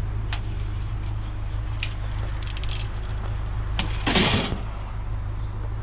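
Scrap being handled and sorted: light clicks and a quick jangling rattle, then a louder scraping clatter a little after four seconds in, over a steady low rumble.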